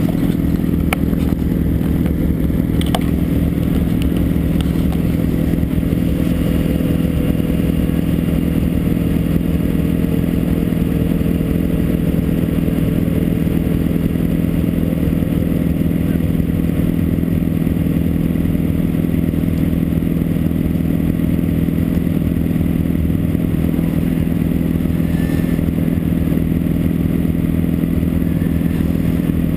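Snowmobile engine idling steadily while the sled stands still, with no revving.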